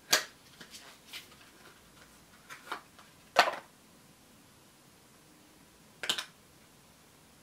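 A blush duo compact and its packaging being handled: a few short crinkles and clicks a couple of seconds apart, the loudest about three and a half seconds in.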